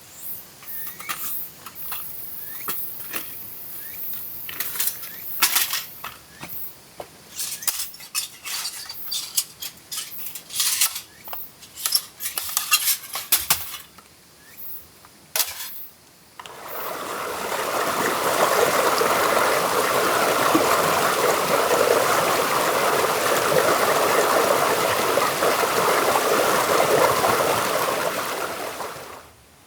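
Metal camp cookware and utensils clinking and knocking in irregular small clicks for about sixteen seconds, then a steady stream of water pouring for about twelve seconds, stopping abruptly near the end.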